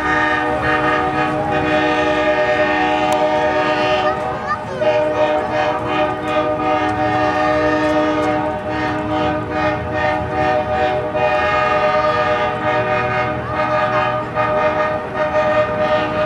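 A locomotive's five-chime Nathan K5LA air horn sounding a long, held chord, with a short break about four and a half seconds in, over the low rumble of the passing train.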